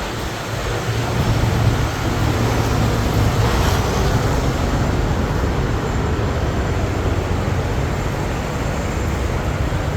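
Honda portable inverter generator running at a steady speed, a constant engine drone.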